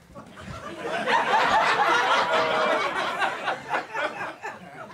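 Comedy club audience laughing, swelling about a second in and dying down over the last couple of seconds.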